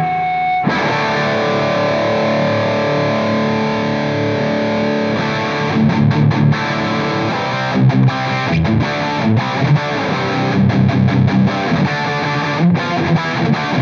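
Electric guitar played through a Soldano SLO pedal set for heavy, high-gain distortion with the mids scooped, in a metal style: a long sustained chord, then from about five seconds in a choppy, stop-start chugging riff.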